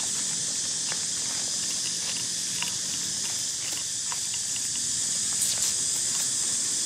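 Steady high-pitched insect drone, with scattered faint clicks and short chirps over it.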